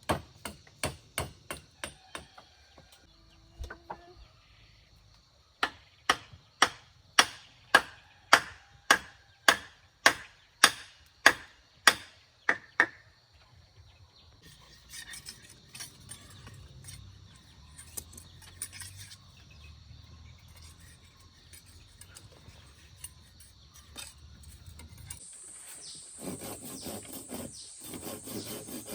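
A hammer striking over and over: quick light taps at first, then about a dozen hard, evenly spaced, ringing blows a little over one a second. After a quieter stretch of scraping, rapid rubbing strokes begin near the end.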